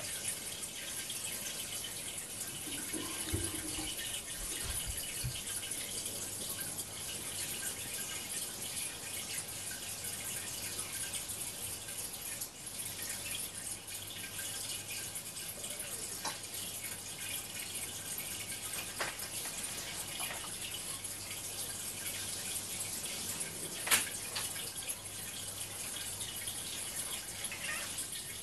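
Steady water sound of an aquarium, trickling and dripping, played through a television's speakers, with a low steady hum beneath. One sharp click stands out near the end.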